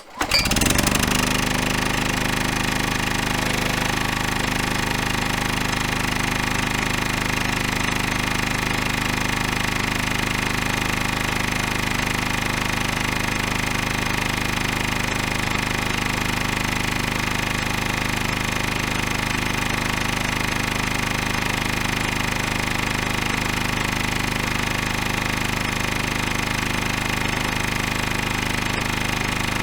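Generator engine running. It rises to speed within the first second, then runs steadily at constant speed with an even, rapid chugging.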